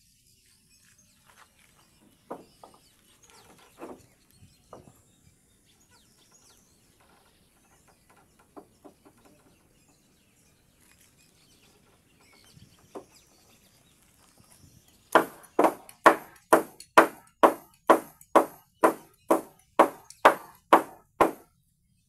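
A hammer driving nails into timber: a few scattered light knocks, then, about fifteen seconds in, a steady run of about fourteen hard blows, two or three a second.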